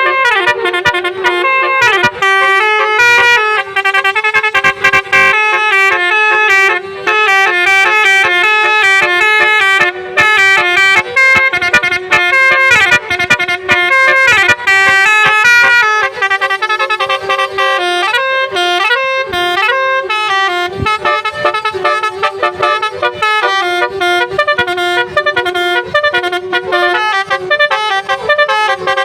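Basuri multi-tone musical vehicle horn (telolet type) playing a fast tune of stepped notes over a steady low note, with a few sliding notes, without a break.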